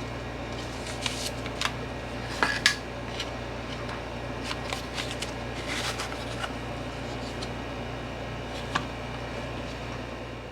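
Scattered light clinks and knocks of dishes and utensils being handled, over a steady low hum. The sharpest clinks come about two and a half seconds in, with more around six seconds and a last one near nine.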